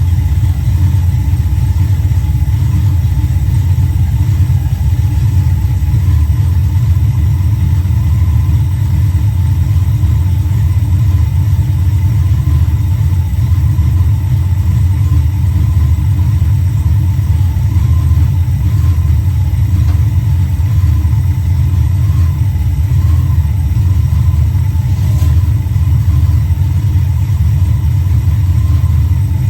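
Mopar 340 small-block V8 running steadily, a loud, even low rumble with no change in speed.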